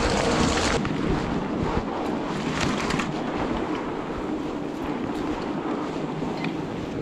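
Steady rolling noise of a fat bike ridden over snow while towing a two-roller trail groomer, with wind on the microphone and a few faint clicks. A brighter hiss cuts off abruptly under a second in.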